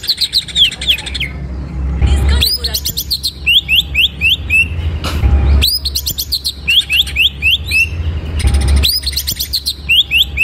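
Male green leafbird (cucak ijo) singing loudly in repeated phrases about every three seconds. Each phrase is a fast, very high rattle followed by a string of quick, sliding whistled notes.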